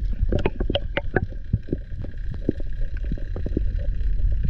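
Underwater sound picked up by a diver's camera as he swims: a steady low rush of water over the housing, with many scattered sharp clicks and crackles.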